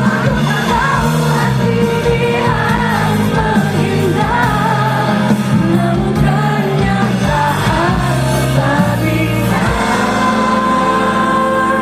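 Live pop song: a woman singing a melody over a band with a steady bass line, through a concert sound system.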